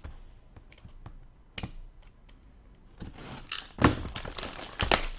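Sealed trading-card boxes being handled and cut open with a knife: scattered light clicks, then from about three seconds in louder knocks and plastic rustling.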